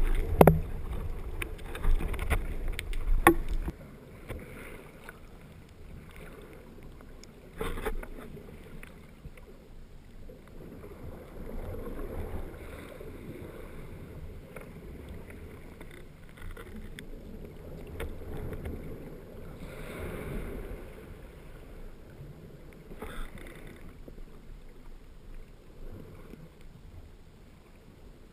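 Rough-sea turbulence heard underwater: a loud churning rumble with sharp clicks from a breaking wave for about four seconds, then a quieter steady wash of surge that swells and fades, with a few isolated clicks.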